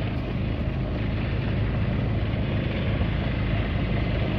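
Four-wheeler (ATV) engine running steadily under way.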